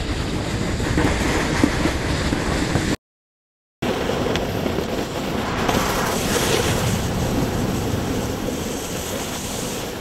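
Snowboards sliding and carving over packed snow with wind buffeting the microphone, a steady rushing noise; it cuts out completely for under a second about three seconds in.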